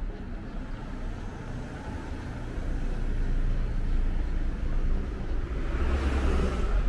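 Honda Spada minivan driving past close by: low engine rumble and tyre noise that grow louder through the second half, with a brief rushing hiss near the end as it passes.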